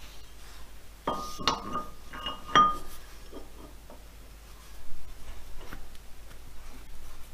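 Steel boring bar being slid into and seated in a lathe tool holder: metal-on-metal clinks and knocks with a short ring, the sharpest about one, one and a half and two and a half seconds in, followed by lighter taps and scrapes.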